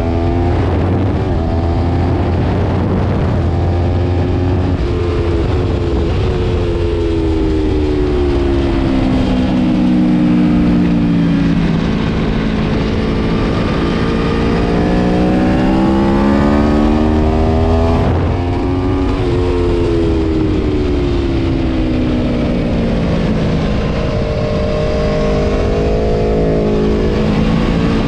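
Aprilia Tuono V4 Factory's 65-degree V4 engine at racing speed, its pitch sinking and climbing over several seconds at a time as the bike slows and accelerates again, with an abrupt break about two-thirds of the way through.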